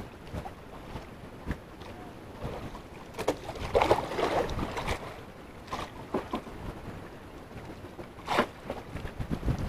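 Wind on the microphone and sea water against a small wooden outrigger fishing boat, with a few sharp knocks and splashes. The loudest cluster comes about four seconds in, with another a little after eight seconds.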